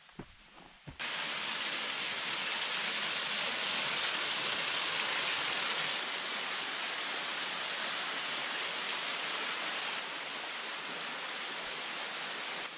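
Small waterfall pouring down a rock face into a rocky pool: a steady rush of falling water that starts abruptly about a second in and is a little quieter for the last few seconds.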